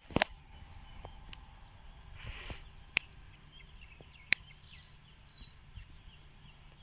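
Outdoor ambience with faint bird chirps throughout and a brief higher call about five seconds in. Three sharp clicks and a short rustle stand out above it.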